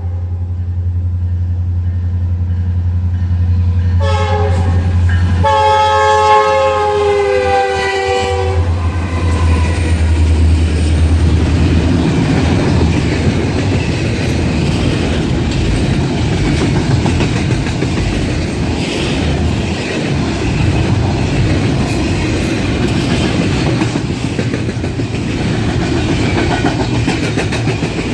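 Diesel locomotive passing close by with its engine running. It sounds its horn twice, a short blast then a longer one whose pitch drops slightly. Then a long string of rail cars rolls past, with wheels rumbling and clattering over the rail joints.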